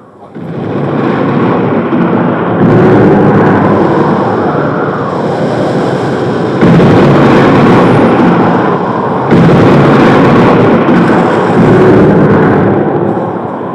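Storm sound effect: a loud rushing roar of thunder and wind that swells up within the first second, with sudden louder crashes of thunder breaking in three times, at about three, seven and nine seconds.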